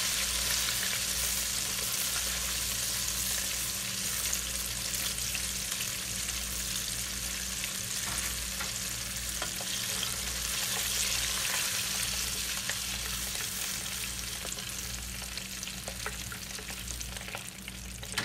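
Cornmeal-breaded catfish fillets deep-frying in hot oil: a steady, dense crackle and sizzle of bubbling oil, with a few light clicks from the spatula turning the fillets and a low steady hum underneath.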